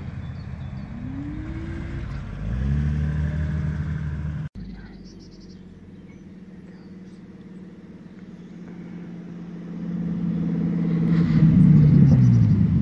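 A classic BMW E28 5 Series saloon driving past and accelerating, its engine note rising and getting louder a couple of seconds in. After a cut, a Lamborghini Huracán Performante's V10 approaches and grows loud near the end, its pitch dropping as it passes.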